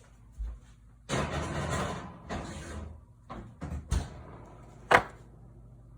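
Oven rack and cast iron pot scraping and sliding into a hot oven, with a few knocks. The oven door shuts with a sharp bang about five seconds in.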